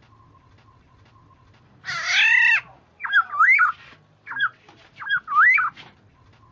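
Black-naped oriole calls: one harsh, nasal call about two seconds in, then two loud fluty whistled phrases with swooping pitch, each under a second, with a couple of short notes between them.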